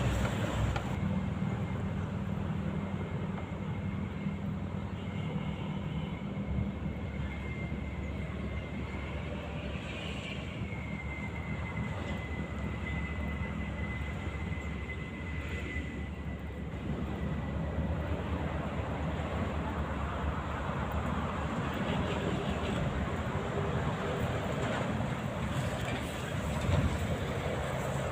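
Road traffic rumbling steadily, with vehicles passing over the bridge. A thin, high, whistle-like tone is held for much of the first half.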